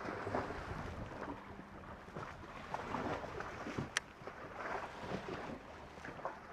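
Small waves lapping and slapping against a bass boat's hull, with wind on the microphone and one sharp click about four seconds in.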